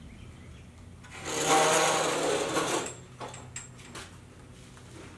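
Metal dash frame rattling and scraping on its pipe stand as it is tipped upright, a clattering rattle of about two seconds that starts about a second in, followed by a few light knocks.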